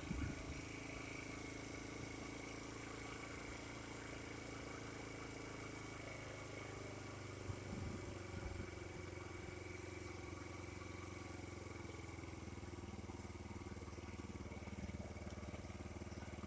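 50cc Chinese scooter's GY6-type single-cylinder four-stroke engine idling steadily, running again after water-contaminated fuel was drained and the spark plug replaced. A couple of faint knocks are heard near the start and about halfway through.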